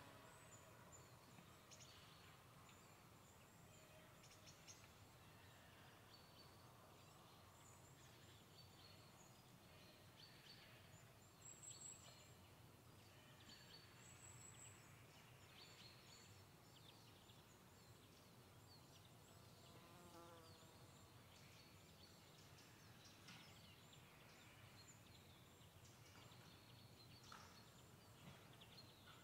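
Quiet pine-forest ambience: small birds give short, high chirps and calls here and there over a faint, steady low rumble. About two-thirds of the way through comes one brief, faint, distant call.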